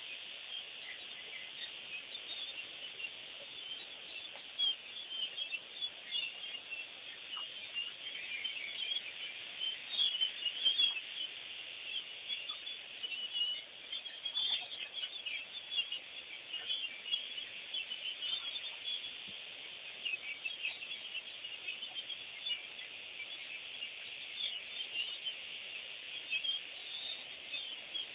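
Chorus of many birds chirping, a steady chatter of short, high calls that never lets up.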